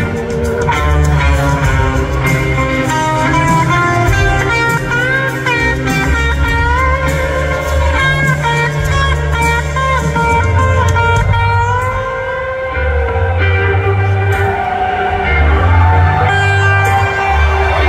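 Live blues-rock band with no vocals: an electric guitar plays long sustained notes that bend and slide in pitch over a heavy bass line.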